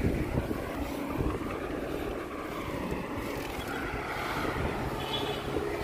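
Wind rushing over the microphone with a low, steady road rumble as a bicycle is ridden along a paved road. Near the end a faint steady tone joins in.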